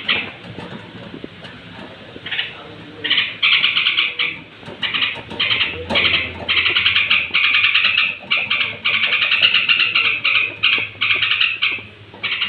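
Yellow-vented bulbul (trucuk) giving its pre-roost evening chatter: short bursts of fast repeated notes, sparse at first, then almost unbroken from about three seconds in.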